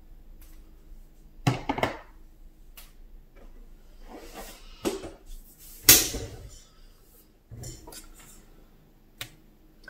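Craft supplies being handled on a tabletop: a clear plastic cup and other small items picked up and set down, giving several separate knocks and clatters.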